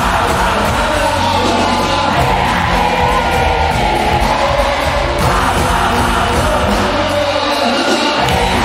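Loud live mbolé band music with a lead vocalist singing and shouting on microphone over it, and crowd noise from the audience.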